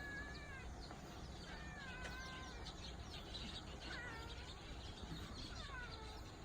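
Pet cat meowing repeatedly, about four drawn-out meows a second or two apart, each sliding down in pitch.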